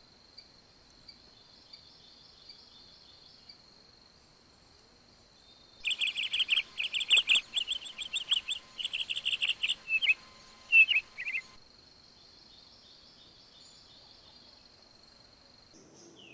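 A bird chirping in a loud, fast run of repeated high chirps for about six seconds, which starts and stops abruptly. Under it runs a steady high insect trill, like a cricket.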